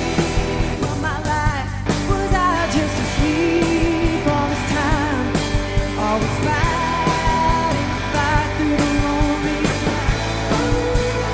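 Live band music in a folk-rock song: a fiddle playing with vibrato over electric guitar and drums.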